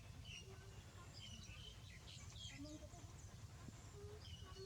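Faint chorus of small birds chirping, with many short high chirps overlapping throughout, over a low steady rumble.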